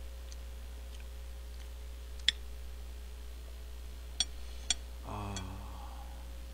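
Metal spoon clicking against a plate of fried rice: one sharp click about two seconds in, then two more in quick succession about two seconds later, over a steady electrical hum.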